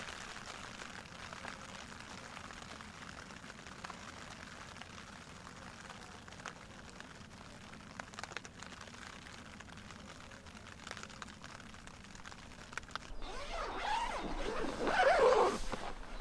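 Rain pattering on the nylon fly of a Quechua MH100 tent, heard from inside: a faint, even hiss with scattered small drop ticks. About 13 seconds in, a louder irregular rustling and scraping of fabric begins.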